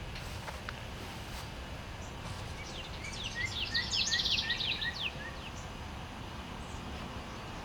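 A songbird sings one quick, jumbled phrase of many rapid sliding notes lasting about two and a half seconds, a little under halfway through, over a steady low outdoor background noise.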